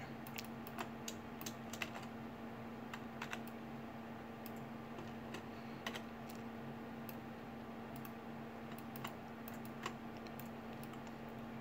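Scattered light clicks of a computer keyboard and mouse at irregular intervals, over a steady low hum.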